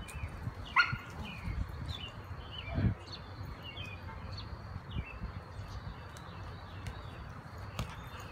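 Small birds chirping in the background, with light thuds of a dog and a person moving about on the grass. A louder, sharper call stands out about a second in, and a brief low sound near three seconds.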